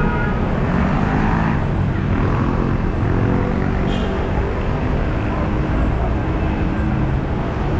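Busy city street traffic: a steady, loud rumble of vehicle engines with vehicles passing, a hissing swell about a second in and a short click around four seconds in.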